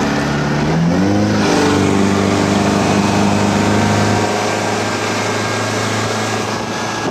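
Speedboat outboard motor revving up over about a second and a half, then running steadily at speed, with a rushing noise of wake and wind.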